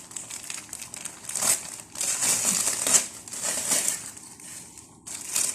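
Packaging crinkling and crumpling as a gift parcel is unwrapped by hand, in irregular rustling bursts that are loudest around the middle.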